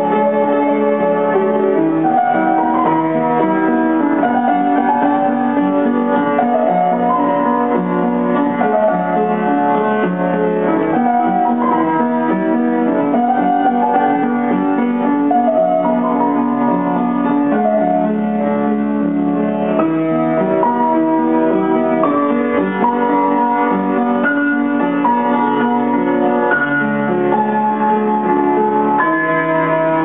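Upright piano played solo: a continuous flow of ringing notes and chords that change about once a second.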